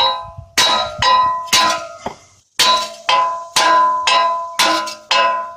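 A hammer striking a steel wheel stud to drive it out of a car's wheel hub: about nine ringing metal blows, roughly two a second, with a short pause about two seconds in.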